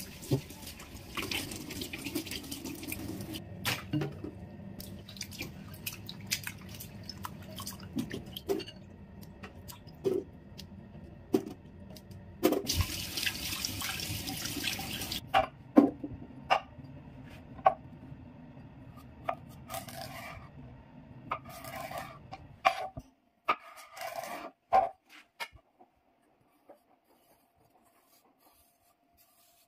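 Kitchen tap running into a stainless steel sink while cucumbers are washed by hand, the stream louder for a few seconds about halfway through as it pours through a wire-mesh strainer of chillies. Sharp clinks and knocks of things set against the sink follow, and the last few seconds are near silent.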